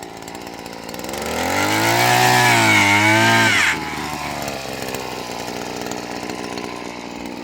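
Chainsaw revving up to full throttle, its pitch sagging briefly, then let off about four seconds in to a quieter, steady running sound.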